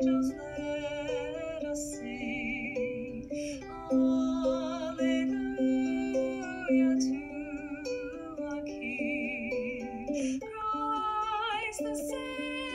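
A woman singing a slow song with vibrato, accompanying herself on a ukulele.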